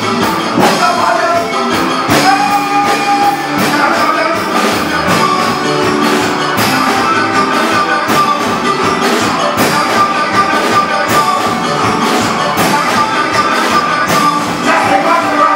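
Soca band playing, with a steady, driving percussion beat under sustained melodic lines.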